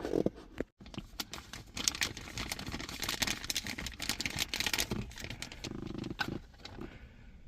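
Hands handling a new plastic window switch bezel, with many small clicks and a dense run of crinkling through the middle and a short squeak about six seconds in.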